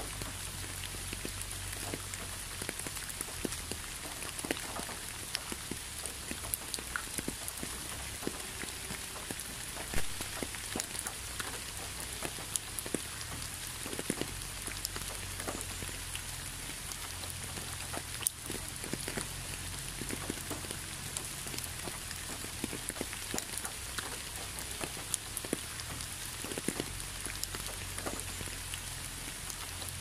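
Steady rain falling, a constant hiss with many separate drops striking close by at irregular moments.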